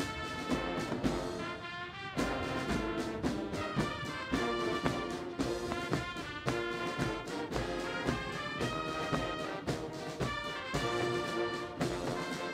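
Brass band music, trombones and trumpets playing a tune over a steady beat.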